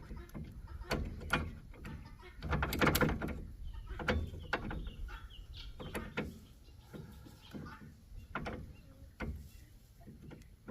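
A trailer lock being picked and worked open: irregular metal clicks, knocks and scrapes from the tools and lock hardware, busiest about three seconds in.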